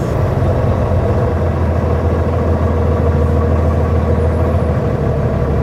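Volvo semi truck's diesel engine running steadily, heard from inside the cab as a low rumble and hum.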